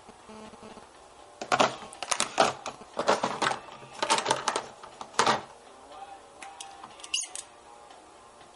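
Clusters of sharp clicking and clattering over a few seconds, then one more short burst, with faint music underneath.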